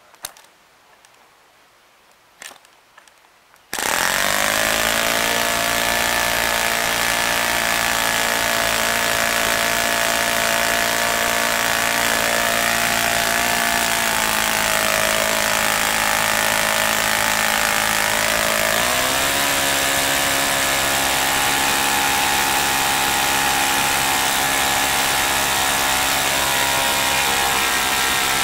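OS FS-30 Surpass single-cylinder four-stroke glow engine, with freshly replaced valve springs, being hand-flipped with a few clicks and then starting suddenly about four seconds in. It runs steadily on the propeller, its speed stepping up about nineteen seconds in as the tachometer climbs from around 6,900 to over 8,000 rpm.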